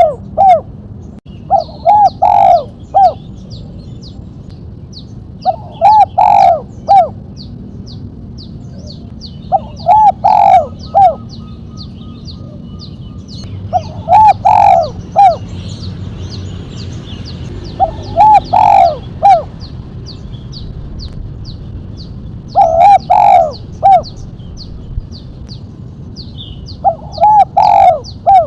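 Spotted dove cooing: a short phrase of several coo notes, repeated about every four seconds. It is the sharp 'mercik' call type with a single sharp 'kuk'. Behind it runs a fast series of thin, high chirps.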